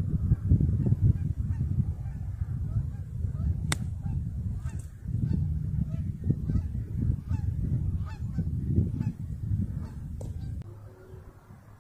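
A golf iron strikes the ball once, a single sharp click about four seconds in, over a steady low rumble of wind on the microphone that falls away near the end.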